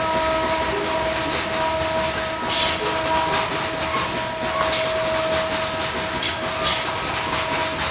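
Freight train rolling past, its wheels clacking over the rail joints in a rapid run of clicks, with steady high-pitched ringing tones running through the rumble.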